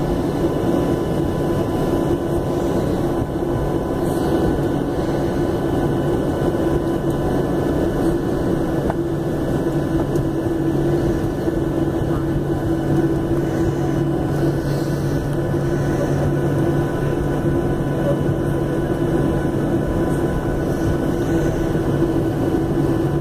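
Steady cabin noise of a Boeing 737-800 taxiing with its CFM56 jet engines at idle: an even rush with two low, steady droning hums underneath.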